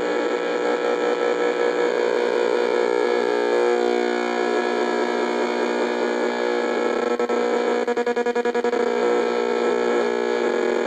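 AM radio tuned near 620 on the dial, picking up the electrical pulses of a Max Miller 9XA pulse circuit driving an HHO electrolysis cell: a dense buzzing drone of many steady tones at once. Some of the tones shift as the circuit's wires are moved. About seven seconds in, the sound chops rapidly, roughly ten times a second, for a second or two.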